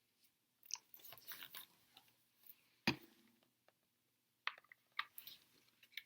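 A book being handled: faint rustling and crinkling with a few sharp clicks, the loudest about three seconds in.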